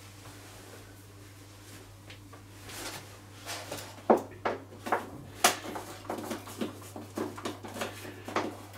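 Hand screwdriver turning screws out of a pressure washer's plastic housing, giving irregular sharp clicks, ticks and knocks of plastic that start about three seconds in. It is heard in a small tiled room, with a low steady hum underneath.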